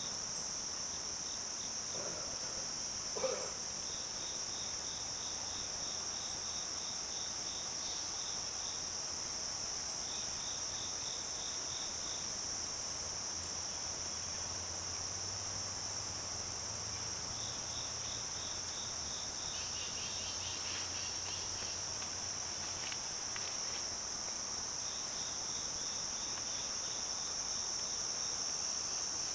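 Insects, crickets among them, chirping outdoors: a steady high shrill chorus, with repeated runs of fast, evenly spaced chirps at about four a second. There is a brief soft knock about three seconds in.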